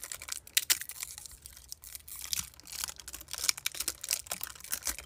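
Amber insulating tape being peeled and unwrapped from a small LED lamp driver board, crinkling and crackling in many small irregular clicks.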